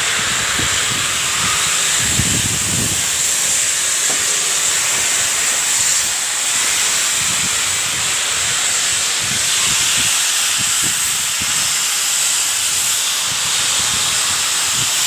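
Loud, steady hiss with its strongest part high in pitch, with irregular low rumbles underneath.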